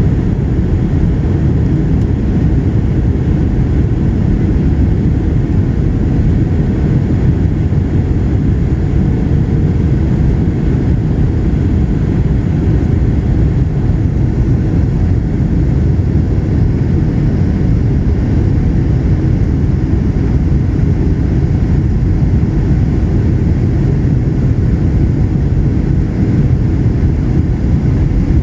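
Steady cabin noise inside a Boeing 737-900ER airliner: the even rumble of engines and airflow, heaviest in the low end, with a faint steady hum above it.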